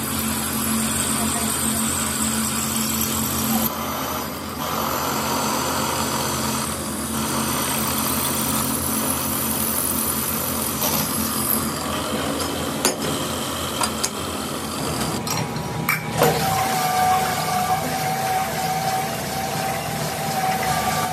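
Drill press motor running while the bit cuts into a cast brake cylinder body clamped in a jig, with a few sharp clicks. About three quarters of the way in, the sound changes to a different steady machine hum with a single held tone.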